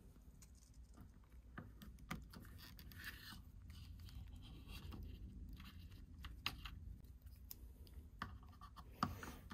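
Faint handling of a plastic action figure: scratching and a few sharp clicks as a translucent plastic sword is worked into the figure's hand.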